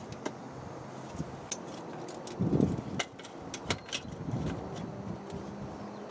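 Metal pump lid band clamp clicking and clinking against the plastic strainer lid as it is fitted around the lid, with a louder scraping thud about two and a half seconds in.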